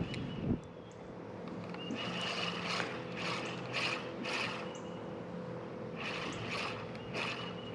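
Shimano Stradic 3000 spinning reel being cranked to work a jig, its gears making a run of short mechanical strokes about two a second, with a brief pause in the middle. There is a low thump about half a second in.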